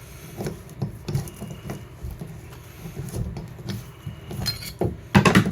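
Metal clinking and knocking as a bathtub drain fitting is worked loose and pulled out with a screwdriver, a string of small knocks with a loud cluster of sharp clanks near the end.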